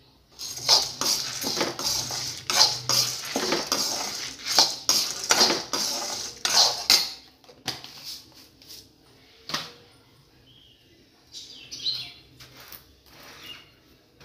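Steel spoon scraping and stirring lentils and dried red chillies around a black iron kadai, with the grains rattling against the pan as they roast. There is brisk, continuous stirring for about seven seconds, then only a few scattered taps and scrapes.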